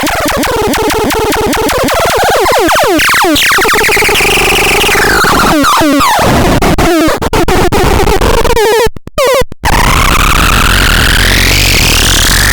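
Dead Kitten noise synth making harsh, squealing electronic noise. It starts with a fast stuttering pulse, swoops down and up in pitch, cuts out twice briefly about nine seconds in, then sweeps slowly upward.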